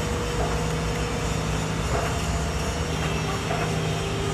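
Steady mechanical drone from an engine: a low hum with a fainter higher tone that sinks slightly in pitch, and a few faint clicks.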